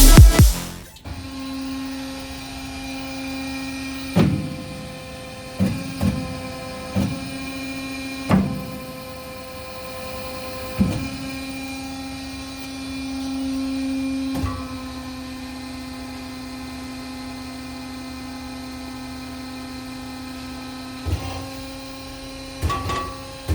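Kasto Twin A3 horizontal bandsaw running with a steady electric hum, punctuated by a series of short, loud clunks at uneven intervals as the machine works.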